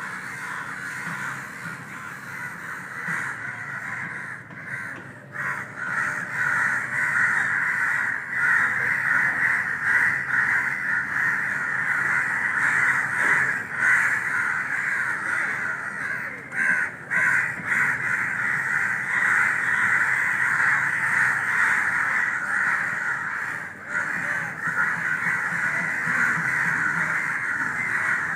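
Crow cawing almost without a break, a harsh call that carries on with only a few short pauses.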